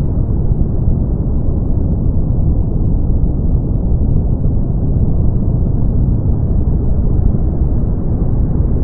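Brown noise: a steady, deep rumbling hiss with most of its energy in the low end, fading out in the treble, unchanging throughout.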